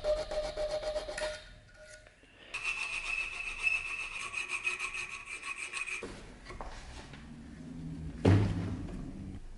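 Hand files rasping on a brass knife guard clamped in a steel vise: quick back-and-forth strokes with a thin steady ringing tone over them, a short pause about two seconds in, and quieter filing after about six seconds. A sharp knock near the end is the loudest sound.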